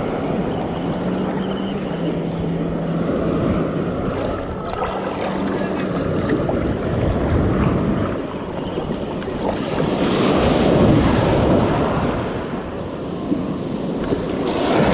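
Small waves sloshing and breaking in shallow surf, with wind buffeting the microphone. The water swells louder about ten seconds in and again near the end, and a low steady hum runs through the first six seconds.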